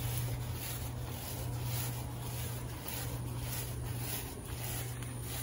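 Steady low hum over even outdoor background noise.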